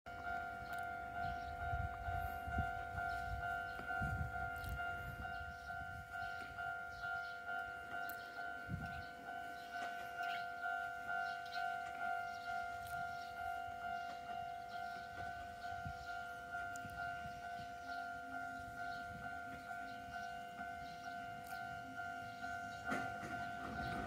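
Electronic railway level-crossing alarm ringing a steady, evenly pulsed clang about twice a second, the warning that a train is approaching. Near the end a train's low rumble comes in under it.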